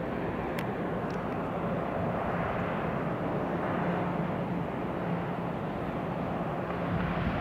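Distant diesel locomotives hauling a long freight train: a steady engine drone with a constant low hum and rumble underneath.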